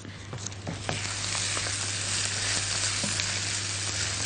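Basmati rice with garlic sizzling in butter in a hot pan while it is stirred with a silicone spatula. The sizzle swells about a second in and then holds steady, with a few light clicks.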